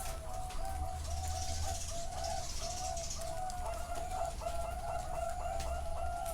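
Several zebra doves cooing at once: overlapping strings of short, quick coo notes, growing busier about two-thirds of the way in.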